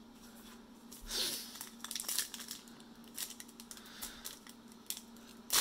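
Crinkling and light clicks of trading cards and a foil card pack being handled, with a louder crinkle about a second in and a loud one just before the end as the pack's foil wrapper is torn open.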